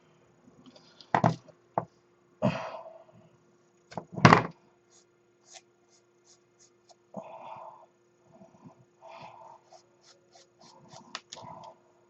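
Small plastic model-kit parts and tools being handled on a workbench: a few sharp knocks and taps, the loudest about four seconds in, then a run of light clicks and short rustles, over a faint steady hum.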